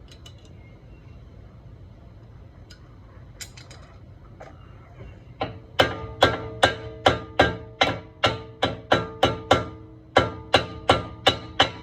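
Small hammer tapping a brake pad retaining pin into a Brembo rear caliper: a quick run of ringing metal taps, about three a second, starting about five seconds in, with a short break near ten seconds. The new pin is not seating flush.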